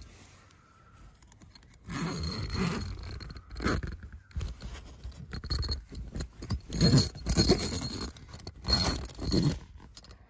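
Heavy zipper on a canvas swag being unzipped from inside in several tugs, with the canvas rustling and scraping between pulls.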